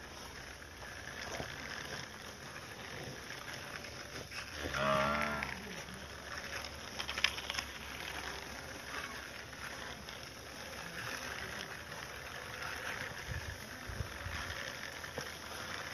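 A cow moos once, a single call of about a second, roughly five seconds in. A sharp click follows a couple of seconds later.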